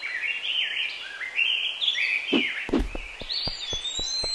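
Birdsong ambience: birds chirping in short rising and falling phrases. About halfway through comes a quick run of about eight soft cartoon footstep thuds.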